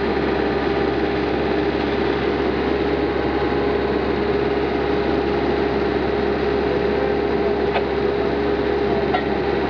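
Beretta T46 drill rig running steadily under power, a constant hum over a dense mechanical din, with two faint clicks near the end.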